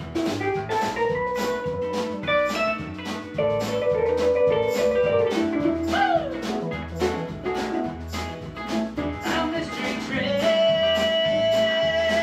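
Live blues-rock band playing an instrumental break, with a keyboard lead over acoustic and electric guitars, bass and a steady beat. A falling pitch swoop comes about six seconds in, and a long held note near the end.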